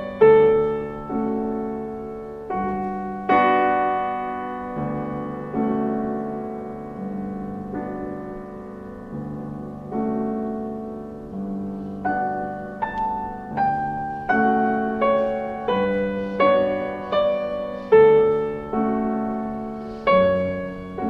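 Slow solo piano music: single notes and chords struck every half second to a second, each fading away.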